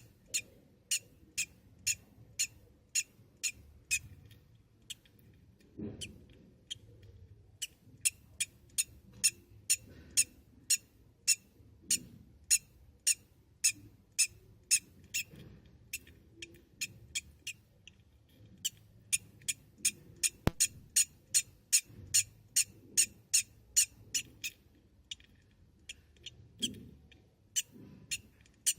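Newly hatched budgerigar chick peeping: a long run of short, high-pitched peeps, about two to three a second, with a couple of brief pauses.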